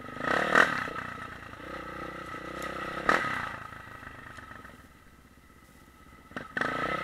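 Off-road dirt bike engine revving in bursts on a rough trail. The throttle opens sharply about half a second in and again at about three seconds, drops to a low quiet stretch around five to six seconds, then picks up suddenly near the end.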